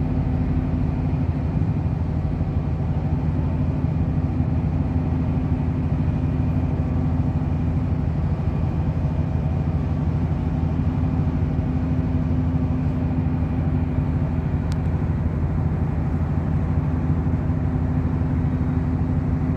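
Motorboat engine running steadily at constant speed, a loud, even low drone with a steady hum.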